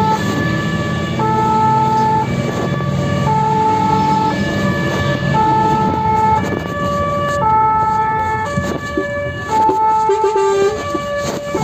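Fire engine's two-tone hi-lo siren, alternating between a lower and a higher pitch about once a second each, over the low running of the truck.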